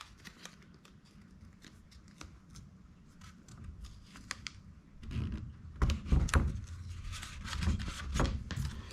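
Masking tape being pulled off the roll and pressed down by hand onto a wheel cover: faint crackling ticks, then louder bumps and rubbing from about five seconds in.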